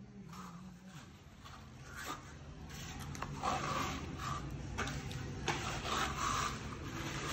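Steel plastering trowel scraping and rubbing across a wall in repeated sweeps, spreading and smoothing tinted lime-based decorative plaster. The strokes grow louder from about three seconds in.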